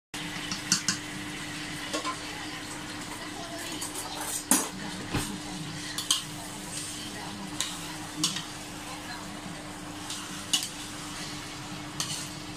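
Metal spoon stirring and turning raw chicken pieces in a stainless steel stockpot, clinking and scraping against the pot's sides about ten times at irregular intervals, over a low sizzle from the hot pot.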